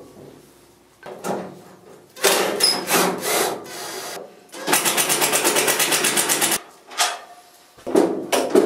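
Ratchet wrench clicking fast and evenly for about two seconds near the middle, with a few short knocks and scrapes of tools on metal before and after.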